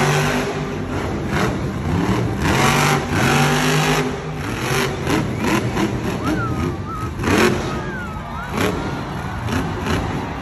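Grave Digger monster truck's supercharged V8 revving hard. The engine note rises and falls with each pull on the throttle, and several sharp cracks come in between.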